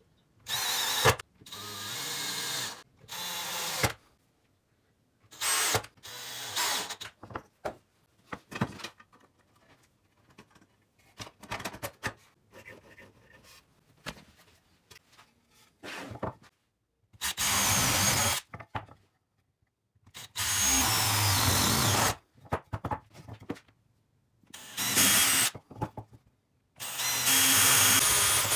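Power drill run in short bursts of one to two seconds, about nine times, with pauses of up to several seconds between.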